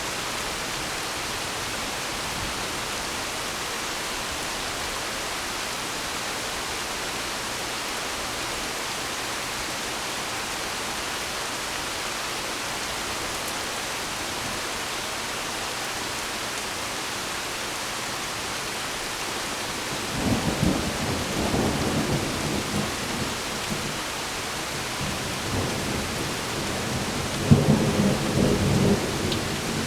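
Steady rain falling, with thunder rolling in about two-thirds of the way through and a louder peal of thunder rumbling near the end.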